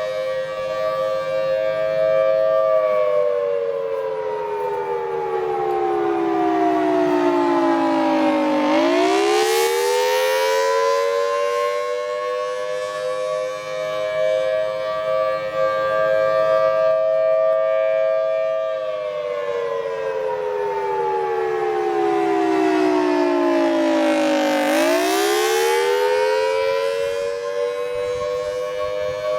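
Federal Signal Thunderbolt 1000AT outdoor warning siren sounding its attack signal. It holds a high pitch, slides down slowly over several seconds, then winds quickly back up and holds again, twice.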